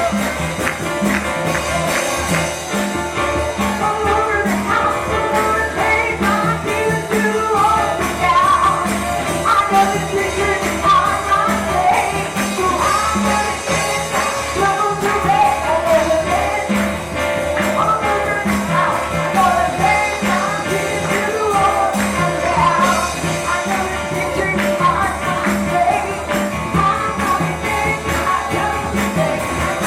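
Live church worship music with a steady beat, tambourine shaking and singing.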